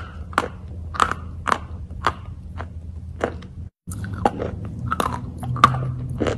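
A lump of chalk chewed close to the microphone: sharp, crunchy bites about twice a second, with a brief dropout about halfway through.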